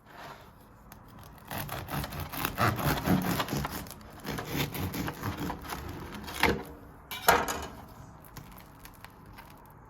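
A bread knife sawing through a crusty sourdough loaf: irregular rasping, crackling strokes, with two sharper cracks about six and a half and seven seconds in.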